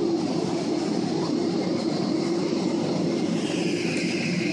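Cabin noise of a Boeing 777-300 rolling on the ground: a steady engine drone with rumble from the wheels over the pavement. A higher engine whine joins about three and a half seconds in.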